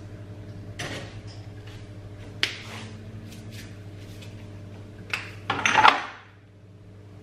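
Spice shaker of chili flakes and a salt grinder handled and shaken over a mixing bowl: a few short rattles and clicks, the loudest a little before the end, over a steady low hum.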